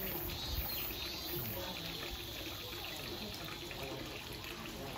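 Steady running water trickling and pouring, with faint music underneath.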